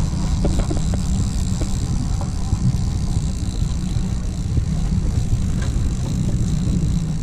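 Outboard boat motor running with wind buffeting the microphone: a steady low rumble.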